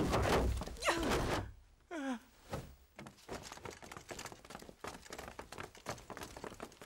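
A thud and a man's pained cries and groans as he is knocked to the floor in a fight. From about three seconds in, the many quiet footsteps of a group of men walking.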